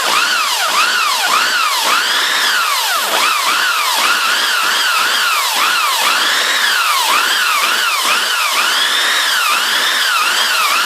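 Electric drill boring through steel plate with a dull bit. The motor's pitch rises and falls again and again, two or three times a second, as the speed and pressure vary.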